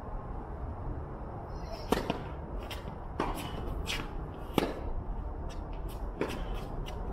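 Tennis ball being hit and bouncing during play: a series of sharp pops, the loudest coming about every second and a half, with fainter ticks between them.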